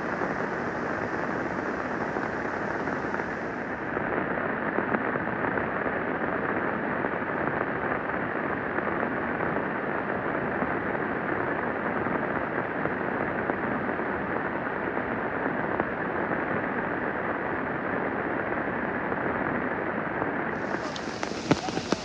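Steady rushing noise with no separate sounds in it. About a second before the end, raindrops start pattering sharply on a nearby surface.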